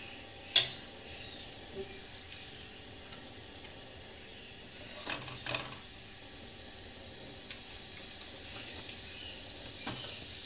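Raw chicken pieces going into hot oil in a frying pan, with a steady sizzle that grows louder near the end. A sharp clack about half a second in and a few softer knocks around the middle and near the end.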